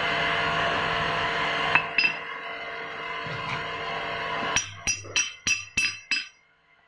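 A flat steel bar knocks against the hole punch machine's steel casing: six sharp metallic clinks in quick succession, about three a second, each ringing briefly. Before them a steady noise cuts off abruptly just under two seconds in, with two sharp clicks.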